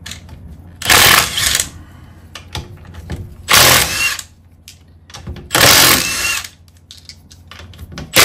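Cordless impact wrench hammering wheel nuts loose: three bursts of just under a second each, about two seconds apart, and a fourth starting at the very end.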